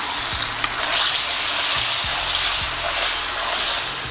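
Lamb pieces sizzling in hot oil and tomato-onion masala in a karahi wok, stirred with a spatula: a steady frying hiss with a few light scrapes.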